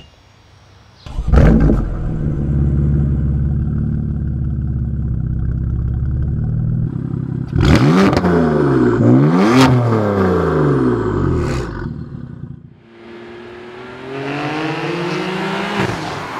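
BMW F82 M4's twin-turbo straight-six, fitted with a REMUS full exhaust (racing X-pipe, valved sport silencers), starting with a loud flare about a second in and settling to a steady idle. About eight seconds in it is revved in quick blips, and later it accelerates, the pitch rising, as the car drives by.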